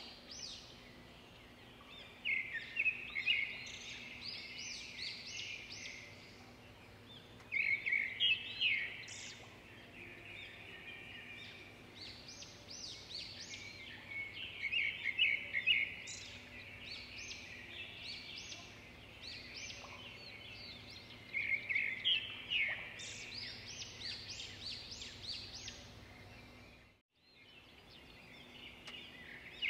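Small birds chirping and trilling in repeated phrases a few seconds long, with short gaps between them, over a faint steady hum. The sound cuts out for a moment near the end.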